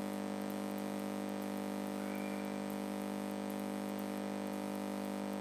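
Steady low electrical hum with faint hiss: the recording's background noise between spoken sentences.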